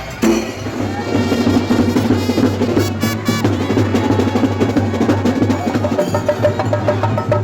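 Fast, dense drumming: a continuous roll of quick strokes over a steady low beat.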